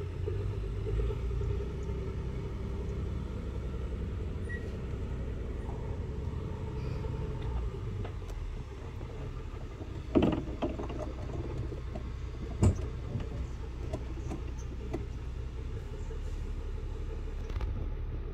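River cruise boat's engine running with a steady low rumble. Two sharp knocks stand out, about ten and twelve and a half seconds in.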